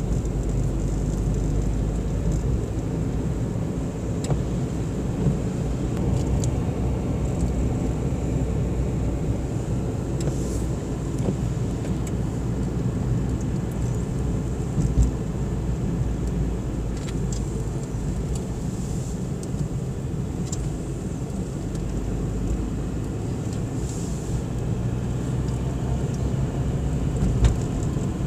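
Car driving up a paved mountain road, heard from inside the cabin: a steady low rumble of engine and tyres, with a couple of brief knocks about halfway through and near the end.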